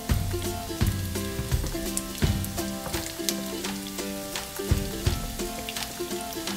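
Dried anchovies (ikan bilis) sizzling and crackling in hot oil in a frying pan as more are tipped in, with background music with a steady beat over it.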